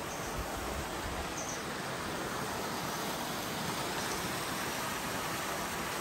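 Shallow river water rushing steadily over a rocky riffle.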